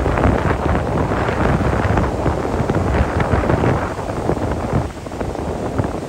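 Ocean surf breaking and washing up the beach, with wind buffeting the microphone, the rush easing briefly about five seconds in.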